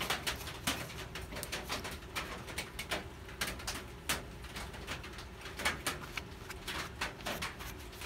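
Irregular light clicks and rubbing of metal tools and a shop rag, as a tap and a small metal bar clamped in a bench vise are wiped clean, over a low steady hum.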